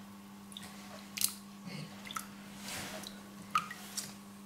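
Water splashing and dripping in a bowl as a hand and a slotted spoon work through boiled chickpeas, skimming off the loose skins. The splashes are short and scattered, the sharpest about a second in, over a faint steady hum.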